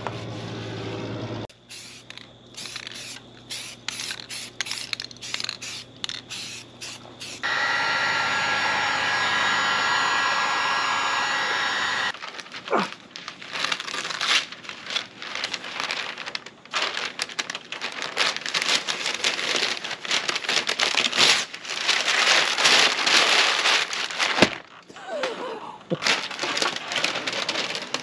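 Masking tape and paper being peeled off freshly painted window trim, crackling and tearing in quick runs, with a few sharp snaps. For about four seconds in the middle, a steady rushing hum takes over.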